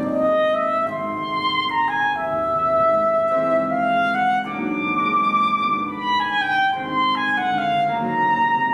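Soprano saxophone playing a melody of held notes that step up and down, over grand piano accompaniment.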